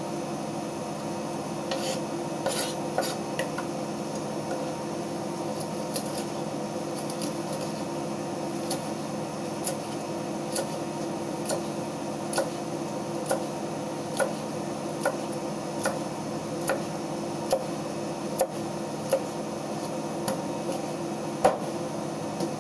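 Large knife chopping a fish into steaks on a cutting board: a regular series of knocks a little more than once a second, each stroke hitting the board, over a steady background hum.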